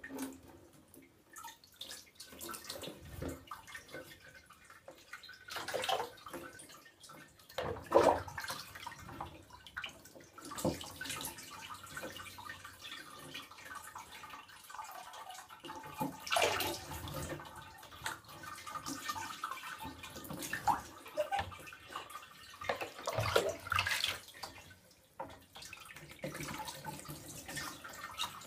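Shallow bath water sloshing and splashing in irregular swishes as a pet rat paddles through it, with a few louder splashes.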